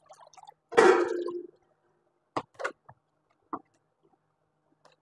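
Dishes and utensils handled on a kitchen counter: one loud clatter with a brief ring about a second in, then a few light knocks.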